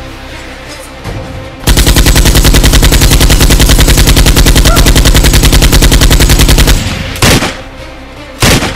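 Machine-gun sound effect: a loud, rapid burst of automatic fire, about a dozen rounds a second, lasting about five seconds. Then two single gunshots about a second apart.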